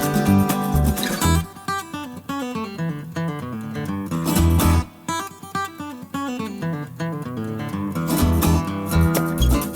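Background music: acoustic guitar picking and strumming, with the bass and drums dropping out for a stretch in the middle.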